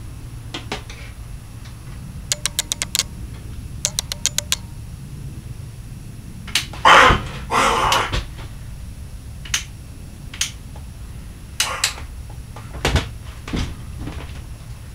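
Knocks, rattles and a scrape of things being moved about in a shed. There are two quick runs of rapid clicking about two and four seconds in, a louder rustling scrape about seven seconds in, and then a few separate knocks, all over a steady low hum.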